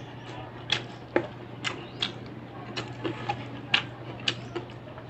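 Eating sounds of a person eating snails and rice by hand: short, sharp clicks and smacks coming irregularly, about two a second, over a steady low hum.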